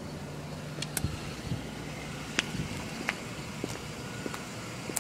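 Car engine idling in park, heard from inside the cabin as a steady low hum, with a scattering of faint sharp clicks and ticks over it.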